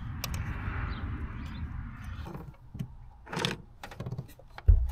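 Hands working a brittle plastic PCV valve cap loose on an engine: soft scraping and rubbing at first, then scattered small plastic clicks and rustles, with a dull knock near the end.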